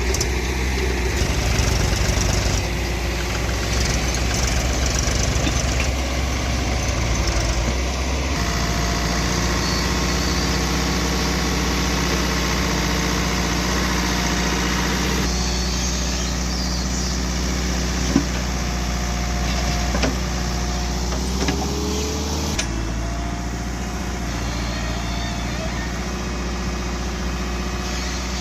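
Diesel engine of a working backhoe loader running steadily, its sound changing abruptly a few times, with an occasional sharp metal clank.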